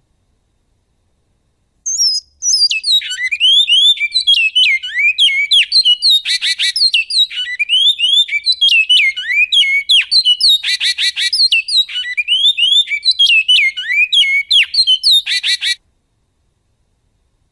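Great-billed seed finch (bicudo) singing in the canto goiano style: one long song of quick, down-sliding whistled notes, broken three times by short harsh rattles. It starts about two seconds in and stops abruptly near the end.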